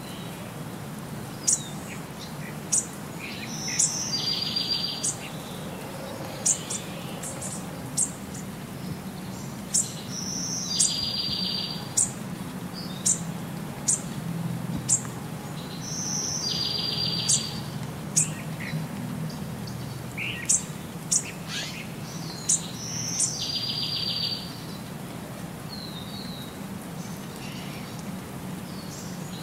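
Birdsong: sharp high chirps about once a second, with a buzzy trill every six seconds or so, repeating in an even loop over a low steady hum.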